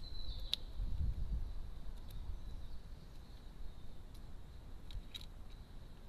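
Magpie pecking and picking up peanuts on a plastic feeder dish: scattered sharp ticks of its bill, a few of them close together near the end. A low rumble runs underneath, loudest about a second in, with a faint steady high tone.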